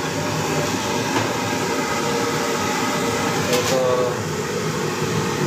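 Steady, loud mechanical whir of kitchen fans, with one sharp click about three and a half seconds in and a brief man's voice just after.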